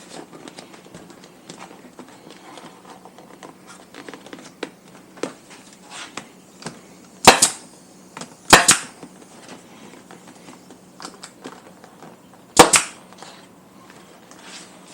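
Nail gun firing three times, driving fasteners through the new cover material into the motorcycle seat base. The loud sharp shots come about a second apart for the first two and about four seconds later for the third, with light clicks of handling between.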